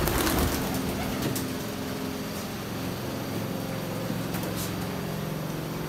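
Steady low mechanical hum, like a fan motor running, with a brief flutter of pigeon wings right at the start and a few faint light clicks.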